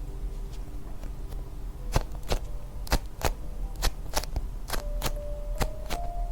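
Sharp clicks or taps, irregular at about two a second from around two seconds in, over soft background music of slow held notes.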